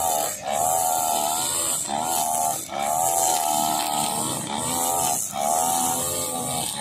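Petrol two-stroke string trimmers running, their engine pitch wavering up and down with short throttle dips about once a second. Over the engines runs a steady high hiss of nylon line cutting grass.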